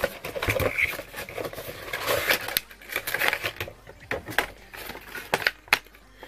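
Funko Pop cardboard box and clear plastic bag being handled as the vinyl figure is unpacked: irregular scrapes, crackles and rustling of cardboard and plastic.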